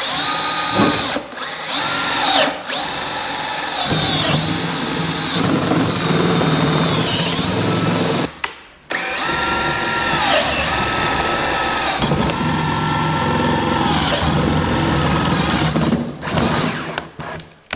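Power drill turning a long spiral wood auger bit down through a plastic garbage can. The motor whine sags in pitch as the bit bites and recovers, stopping briefly a few times, longest about eight seconds in.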